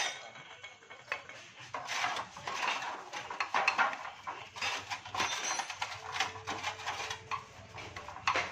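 Metal scooter parts and hand tools clinking and knocking together in an irregular clatter, as the automatic clutch is worked on.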